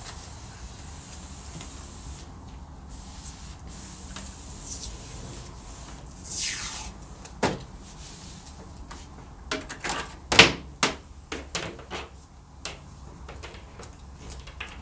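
Handling noises at a wall: a swish about six seconds in, then a cluster of sharp knocks and clicks, the loudest about ten seconds in.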